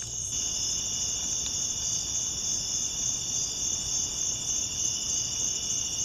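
A steady, unbroken high-pitched trilling of night insects, without pause or change in level.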